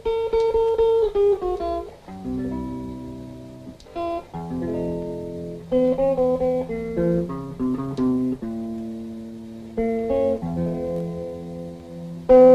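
Slow solo guitar music: plucked single notes and chords, each ringing out and fading before the next.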